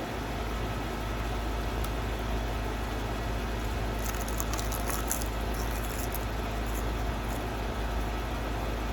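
Steady low background rumble, with a cluster of faint crisp crackles about four to six seconds in.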